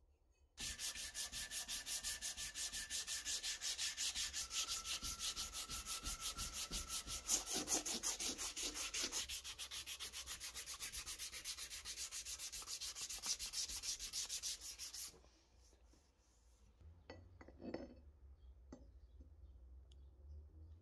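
Sandpaper rubbed by hand over a bare cast metal part in quick, even back-and-forth strokes, smoothing out surface imperfections; it stops about 15 seconds in, and a few faint clicks and handling sounds follow.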